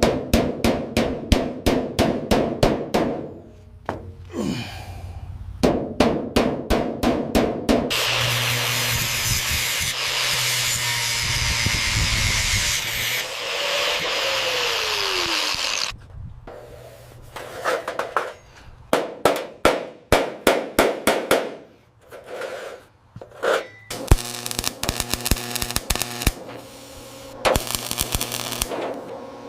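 Workshop repair noises: runs of sharp, rapid knocks at about four a second, with a steady noisy rush lasting several seconds in the middle.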